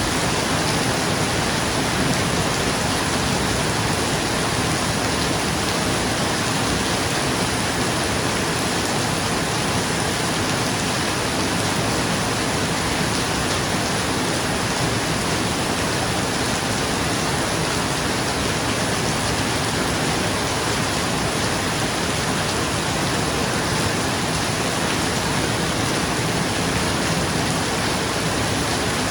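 Rain falling steadily on a roof, an even, unbroken hiss.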